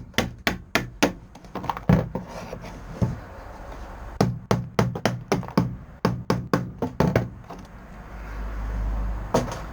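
Hammer blows driving a cold chisel under bitumen sound-deadening on a classic Mini's steel floor pan, chipping it off in chunks. The sharp strikes come about three a second in runs with short pauses, and a low rumble rises near the end.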